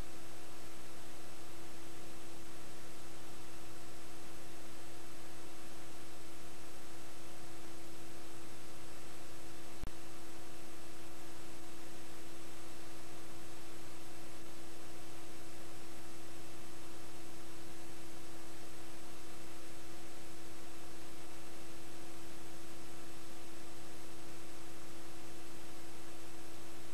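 Steady electronic hiss with a constant hum and no other sound: the noise floor of a video transfer that carries no audio. One faint click about ten seconds in.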